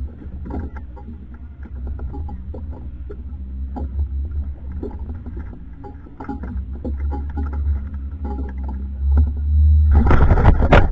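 Steady low rumble of a fishing boat at sea, with scattered light clicks and taps of fishing tackle being handled. About ten seconds in, a loud rush of noise starts.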